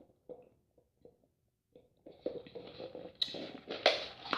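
A person chewing food close to the microphone: quiet at first, then a run of irregular soft mouth sounds from about two seconds in.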